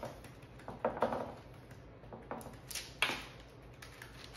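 Spatula spreading and patting a wet riced-cauliflower and egg mixture into thin rounds on a parchment-lined sheet pan: a few short scrapes and soft pats about a second apart.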